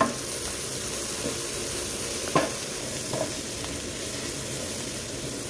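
Diced vegetables and scrambled egg sizzling in an oiled pan while a wooden spatula stirs them, with two brief knocks, a little over two seconds in and about a second later.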